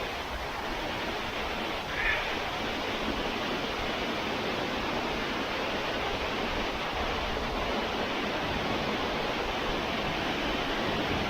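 Steady rushing of water falling over a waterfall cascade.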